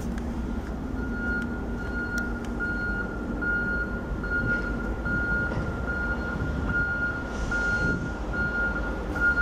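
EMD F59PH diesel locomotives idling with a steady low rumble, while a high electronic beep repeats about twice a second.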